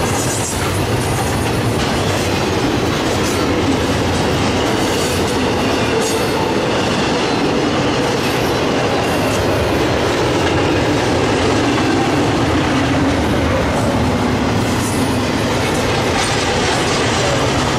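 Double-stack intermodal container train rolling past at steady speed. A continuous rumble of steel wheels on rail runs throughout, with clickety-clack over the rail joints.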